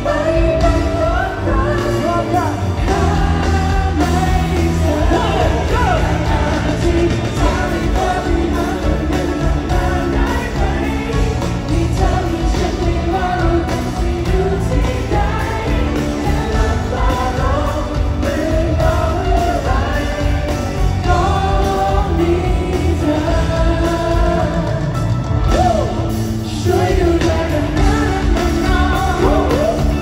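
Live pop-rock song played loud through a concert sound system: a male singer on a microphone over a full band with drums and bass guitar, sung continuously to a steady beat.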